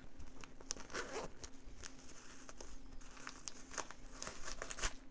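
Vintage leather motorcycle jacket being handled close to a microphone: irregular rustling and crinkling of the leather, with scattered small clicks.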